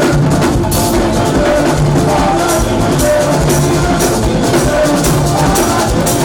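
Loud music with a steady drum-kit beat, cymbal strokes and sustained instrument lines, with singing.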